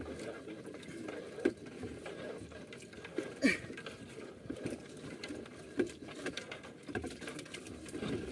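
Quiet, irregular taps and knocks aboard a small wooden outrigger fishing boat, with a few sharper knocks about one and a half, three and a half and six seconds in.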